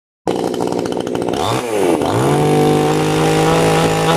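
Two-stroke chainsaw engine starting up suddenly and running unevenly at low speed. About a second and a half in it is blipped, drops back, then revved up and held at a steady high pitch.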